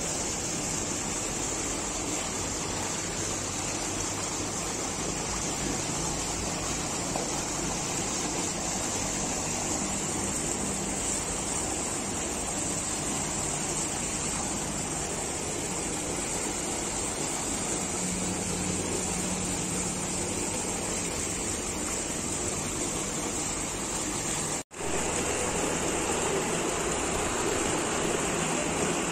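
Steady rushing of water at a fish pond. It cuts out for a moment near the end, then comes back slightly fuller.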